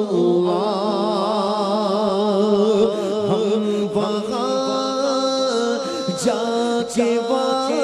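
A woman singing a devotional chant in long, held, melismatic notes with vibrato, into a microphone.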